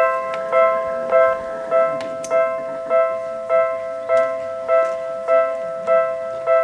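Japanese railway level crossing's electronic warning bell ringing: a two-tone chime struck in an even, steady rhythm of a little under two strikes a second, each strike ringing on into the next, the signal that a train is approaching and the barriers are down.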